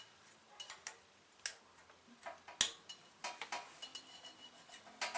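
Light metallic clicks and taps of a wrench and feeler gauge on a small engine's valve rocker adjuster while the intake valve clearance is being set, with one sharper click about two and a half seconds in.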